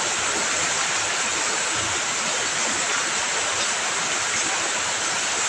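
Heavy rain pouring down steadily as an even, unbroken hiss.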